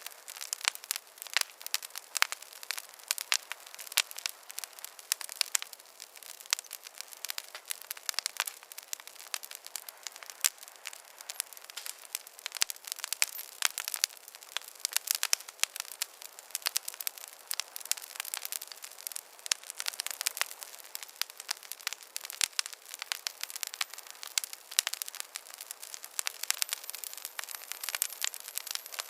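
Wood fire crackling in a fireplace: many irregular sharp pops and snaps over a soft hiss.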